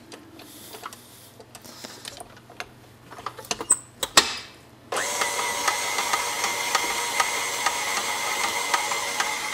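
A few light knocks, then about halfway through a KitchenAid Heavy Duty stand mixer switches on abruptly and runs steadily, its motor and gearbox giving a steady hum with a fast regular ticking as the dough hook kneads the butter into the brioche dough.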